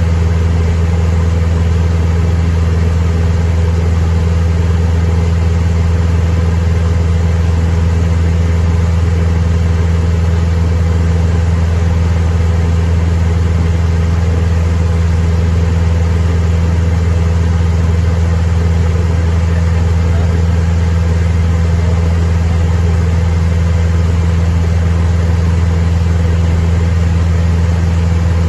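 Cessna 172M's Lycoming four-cylinder piston engine and propeller running at a steady, unchanging speed, a loud constant drone heard from inside the cabin.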